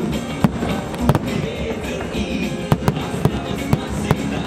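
Fireworks shells bursting overhead, about ten sharp bangs at uneven intervals, over loud music with a heavy bass.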